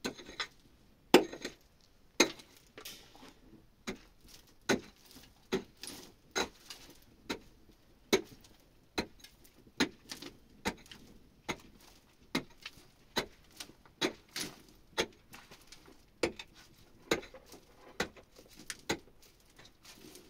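Repeated sharp knocks, a little more than one a second, in a steady working rhythm, each a short strike with a brief ring.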